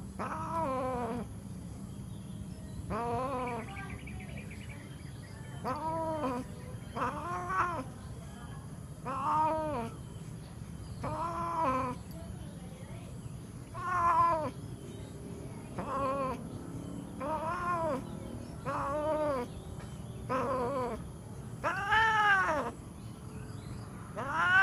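Domestic cats mating, the mounted cat yowling: a series of about a dozen short caterwauls, each rising then falling in pitch, coming roughly every one and a half to two seconds, the loudest near the end.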